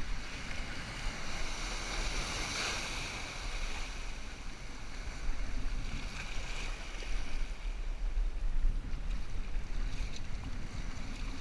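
Small waves surging and washing over shoreline rocks around an inflatable kayak, with wind rumbling on the microphone.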